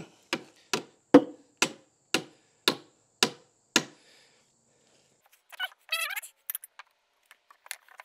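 Hammer striking a 2x12 board eight times, about two blows a second, knocking a slight bow out of the header board; then a short squeak and a few light taps.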